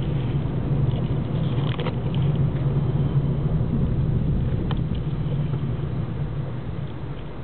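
A car's engine and tyre noise heard from inside the cabin while driving: a steady low drone that eases off near the end as the car slows.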